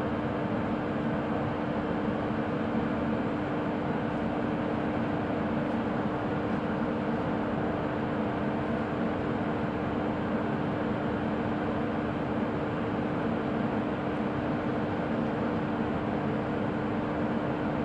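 WAP1 electric locomotive standing energised and idling: a steady rushing noise with a constant hum held on one pitch.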